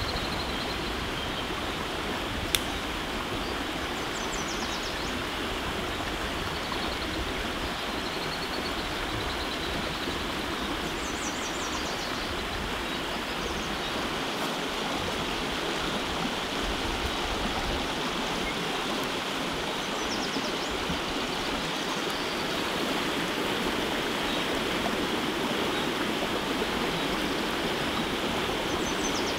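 Small forest stream rushing over rocky cascades: a steady wash of running water. A single sharp click about two and a half seconds in, and a few faint high chirps now and then.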